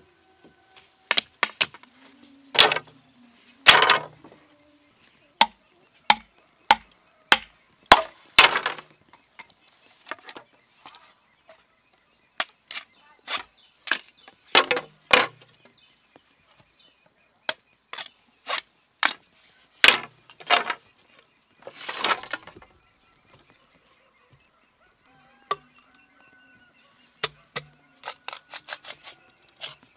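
Machete blade chopping into and splitting an upright green bamboo pole: sharp knocks at irregular intervals, with several longer, louder strokes.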